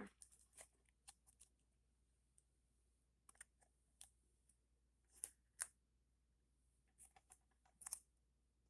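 Faint, scattered clicks and taps of a plastic DVD set being handled, with near silence between them.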